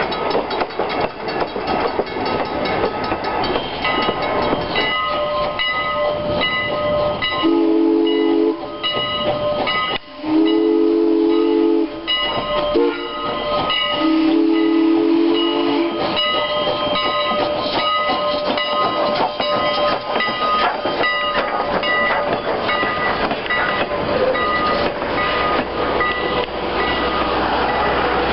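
Passenger cars rolling past on the rails, with constant clicking and steady high squealing tones from the wheels. Partway through, Strasburg Rail Road No. 89's steam whistle sounds a chord in the grade-crossing pattern: two long blasts, a short one and a long one.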